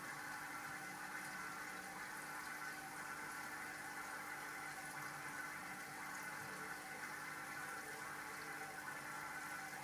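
Aquarium water circulation: steady, faint bubbling and trickling of water from the tank's filter, with a light steady hum underneath.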